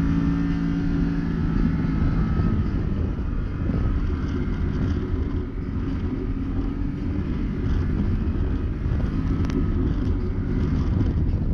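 Can-Am Maverick Sport X mr side-by-side's V-twin engine running steadily under load on the trail. Its clear engine note in the first couple of seconds gives way to a rougher low drone.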